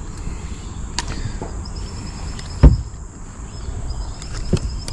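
Knocks on a fishing boat as a landing net is pulled free: a few light clicks and one loud thump about two and a half seconds in, over a steady low rumble.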